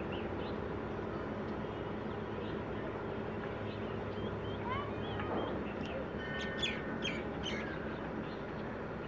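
Small birds chirping and calling several times in the second half, over a steady low hum.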